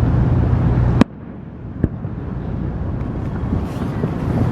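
Fireworks display heard from afar: a dense low rumble of bursts, broken about a second in by a sharp crack after which the sound drops away suddenly, then a second smaller crack and the rumble building again.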